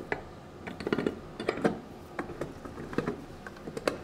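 Torque converter of an A6MF1 automatic transmission being turned by hand and worked onto its shafts, giving irregular metallic clicks and knocks as its splines and pump drive catch and drop into place. The clicks are the sign of the converter seating on the transmission.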